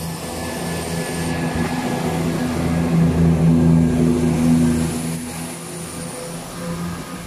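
Southern Class 171 Turbostar diesel multiple unit pulling out past the platform under power: its underfloor diesel engines drone with a low, steady note, loudest about three to four seconds in, then fading as the train draws away.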